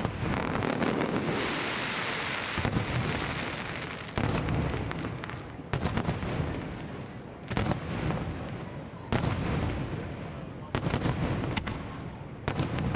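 Aerial firework shells bursting in a steady series of loud booms, about one every second and a half, with the crackle and hiss of burning stars between the bursts.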